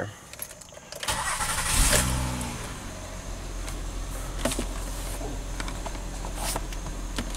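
2010 Honda Ridgeline's 3.5-litre V6 being started from inside the cab: the starter cranks for about a second, the engine catches and flares up briefly, then settles into a steady idle.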